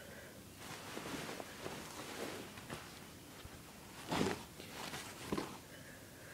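Faint rustling and handling of clothing, with a louder rustle about four seconds in and shorter ones just after five seconds.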